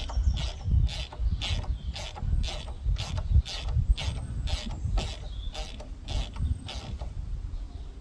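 Socket ratchet wrench turning out the 5 mm Allen pad-pin bolt of a scooter's front brake caliper, the pawl clicking on each back-swing about twice a second. It stops near the end.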